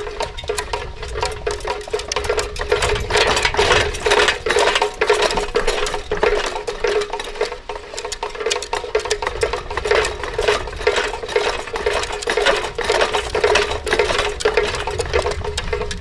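Westinghouse Comet ceiling fan motor running over a steady hum, with its loose blades, fitted without mounting brackets, rattling rapidly against the motor housing in a fast clatter.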